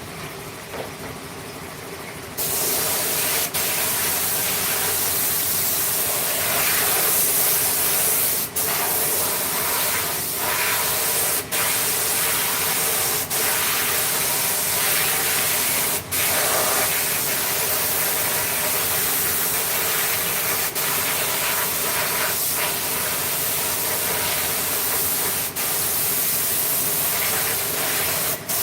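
Compressed air hissing steadily from an air gun in a wood-carving workshop, starting about two seconds in after a quieter steady hum, with several brief dips along the way.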